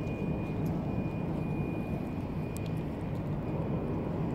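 Steady low engine rumble with a thin, steady high whine above it.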